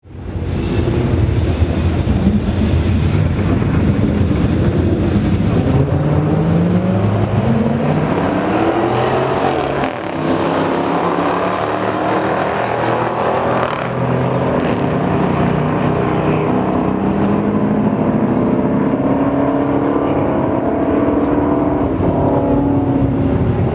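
Dodge Chargers' 5.7-litre Hemi V8 engines at full-throttle drag-strip acceleration, the pitch climbing in repeated rising sweeps as they run through the gears, with a brief drop in loudness about ten seconds in.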